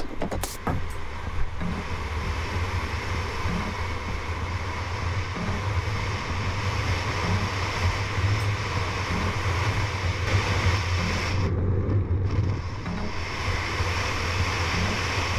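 Wind buffeting an action camera's microphone during a fast speed-riding descent and flight, a steady rushing noise with a heavy low rumble. The hiss drops away briefly a little before the end, then returns.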